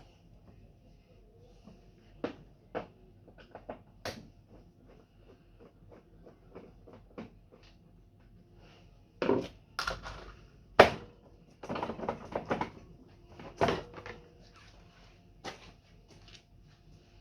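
Irregular knocks, clicks and light clatter of hands working on parts of an air conditioner, scattered at first and then coming thick and fast about nine to fourteen seconds in, with one sharp knock about eleven seconds in.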